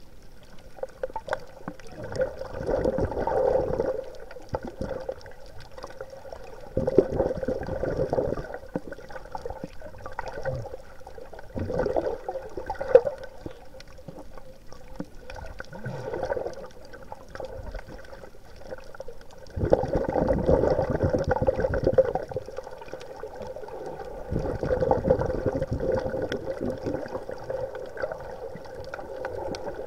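Water gurgling and bubbling in bursts of a second or two, recurring every four or five seconds, over a faint steady hum: a recording made in the water on a reef.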